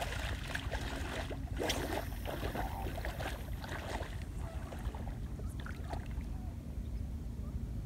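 Wind buffeting the microphone with a steady low rumble, over crackling, splashing shallow water at the shoreline that is busiest in the first two seconds and then dies down.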